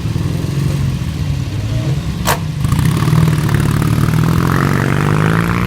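Vintage motorcycle engine running, then revving up, rising in pitch over the last couple of seconds. A single sharp crack about two seconds in.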